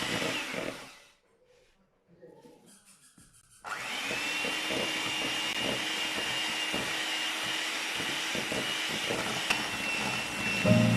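An electric household appliance switches on about four seconds in and runs steadily: a rushing motor noise with a whine that rises as it spins up and then holds one pitch. A short hiss fades out in the first second.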